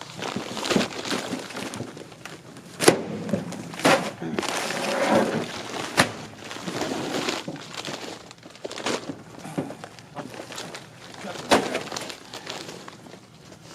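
Frozen bags of coal being thrown down and stacked: several sharp thuds at uneven intervals, with bags rustling and shuffling between them.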